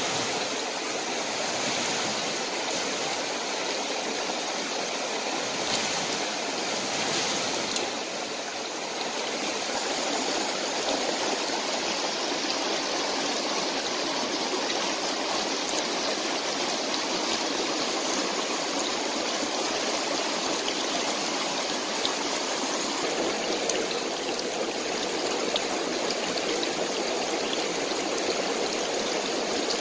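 Rocky mountain stream running over stones and small cascades: a steady wash of flowing water.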